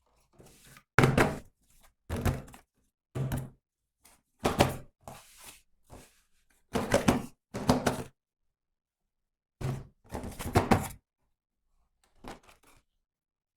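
A series of about ten short knocks and thunks, irregularly spaced with quiet gaps between them: toys and their packaging being handled and set down on a hard surface during unboxing.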